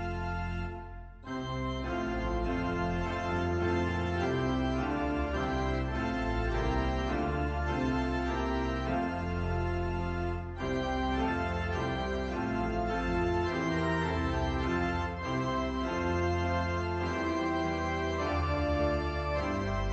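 Organ music: full held chords over a deep bass line, with a brief gap about a second in.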